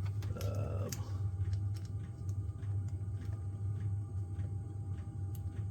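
Faint, scattered small clicks and taps of plastic parts being handled while a laptop's internal cable connectors are fitted back in, over a steady low electrical hum.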